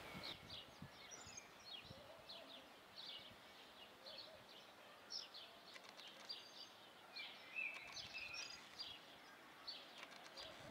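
Birds chirping faintly, short high chirps every second or so, over a low steady background hiss.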